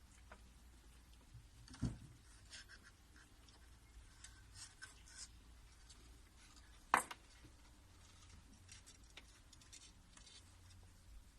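Faint rustling and scratching of British Shorthair cats moving about and playing, with two brief knocks, the louder one about two-thirds of the way through.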